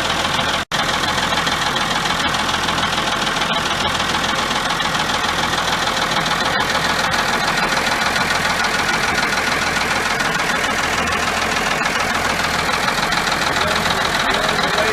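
John Deere 3255 tractor's diesel engine idling steadily. The sound drops out for an instant just under a second in.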